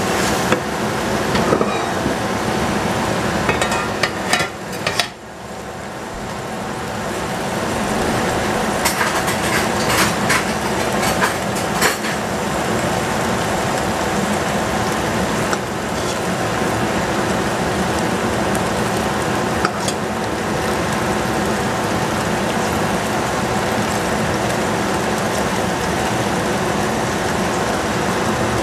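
Cut vegetables sizzling in a stainless steel pot over a gas burner, with a wooden spoon stirring them and knocking against the pot several times in the first dozen seconds. After that only a steady sizzle remains.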